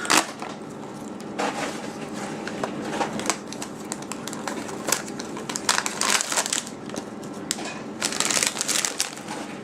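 Koala's March biscuit box and its inner wrapper being opened by hand: packaging crinkling, with irregular sharp crackles that come thickest near the end.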